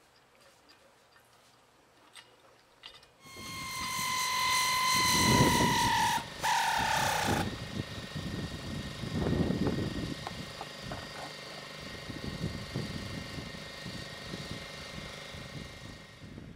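A high mechanical whine starts about three seconds in and slides slowly down in pitch for about four seconds, with a brief break, then drops to a fainter steady hum over irregular low rumbling.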